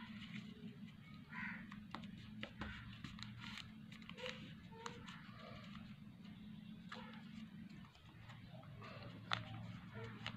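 Faint crinkles and short clicks of a sheet of paper being folded and creased by hand, scattered irregularly over a steady low hum.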